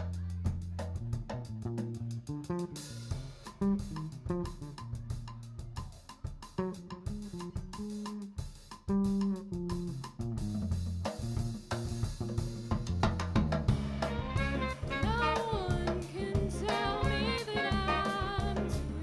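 Live jazz band playing: drum kit, electric bass and chords from guitar and keyboard. About two-thirds of the way through, a lead melody with vibrato comes in over the band and carries to the end.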